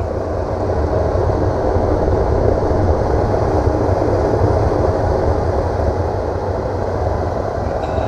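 RV propane furnace running, its blower fan and burner making a steady rumble that builds a little over the first couple of seconds and then holds. It is running on its own with nothing jumpered, after a faulty sail switch was found to be the fault.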